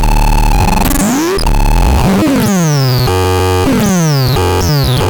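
Synthesizer playing loud, buzzy tones that change every second or so, with several notes sliding steeply down in pitch.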